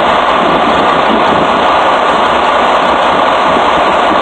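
Truck engine idling: a loud, steady, unchanging drone.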